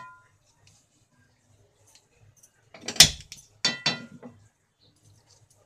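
Nonstick frying pan knocking against the gas stove's burner grate as it is set down and shifted. There is a clank with a short metallic ring right at the start, then a cluster of three or four clanks and rings about three to four seconds in.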